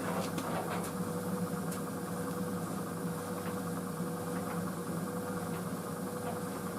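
White Knight CL43 tumble dryer running on a high-heat cycle: a steady, even hum of the drum motor and fan, with a faint whine held at one pitch.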